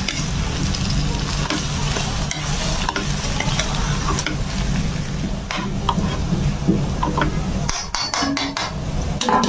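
Steel spoon stirring and scraping mashed boiled potatoes through hot spiced oil in a stainless-steel kadhai, with a low sizzle underneath and scattered clinks of the spoon on the pan. The clinks come thick and fast in the last second or so.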